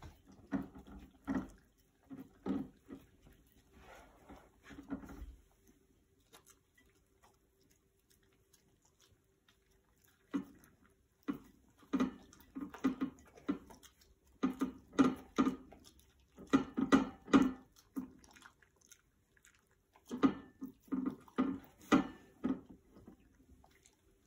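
Two dogs licking crumbs off paper plates: quick wet laps in runs of several strokes, pausing for a few seconds before the middle and then starting up again.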